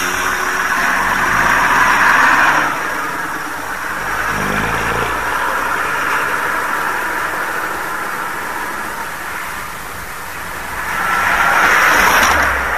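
Vintage single-deck bus driving past and away with its engine running and road noise, then a car passing close by near the end.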